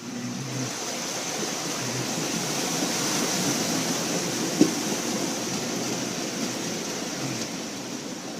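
Steady rushing and splashing of creek water as a vehicle wades through it, swelling and then easing off, with one sharp knock about four and a half seconds in.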